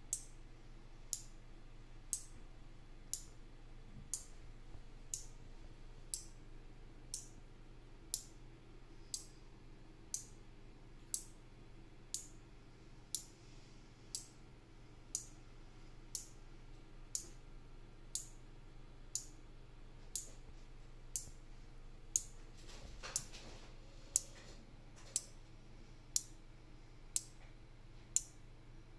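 Electromagnetic relays on four-channel relay modules clicking as they switch, one sharp click about every second, driven by a microcontroller that picks a random relay at each step. A short rustle of handling comes in about three quarters of the way through.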